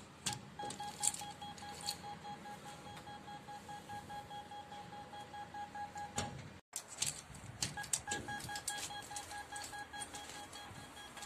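VIZIT intercom door panel beeping in a quick, even pulse for about five seconds after a key fob is touched to its reader, the panel's door-open signal. After a break, a second intercom panel gives the same beeping for about three seconds, with scattered clicks of the key fob and handling.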